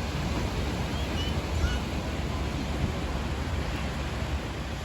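Ocean surf washing steadily, with wind rumbling on the microphone. A few faint high chirps come about a second in.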